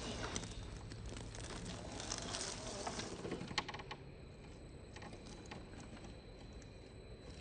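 RC4WD Trail Finder 2 scale crawler moving over rock and loose stones: scattered small clicks and crunches of tyres and pebbles over a steady outdoor hiss. A sharp click about three and a half seconds in, after which the sound turns duller and quieter.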